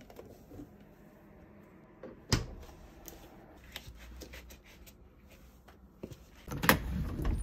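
Small household handling sounds: a refrigerator door shut with one sharp knock about two seconds in, then light clicks and scuffs of feet stepping into sandals, growing into louder scuffing and knocking near the end.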